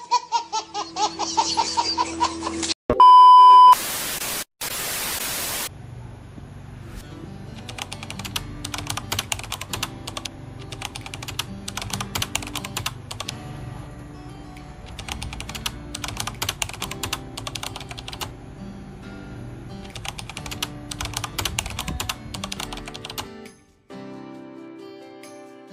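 A baby laughing for about three seconds, then a short beep and a loud burst of static, then background music with a rapid clicking beat.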